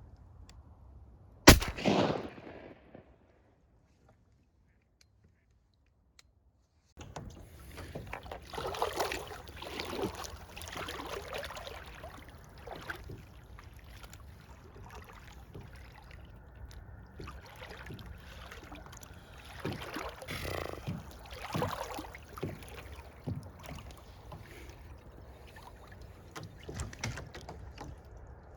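Water sloshing and splashing around a kayak, with irregular paddle strokes and knocks against the hull. One sharp bang about a second and a half in, ringing off for about a second, is the loudest sound.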